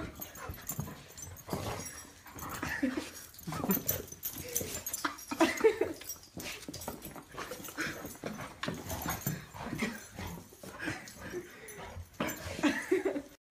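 A dog whining and yipping excitedly in short, irregular bursts while it plays rough with a person.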